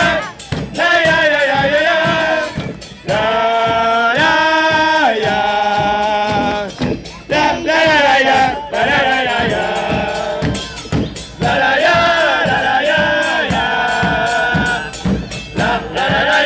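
Music: a group of voices singing together in unison over a driving percussion beat, with sharp hits a few times a second.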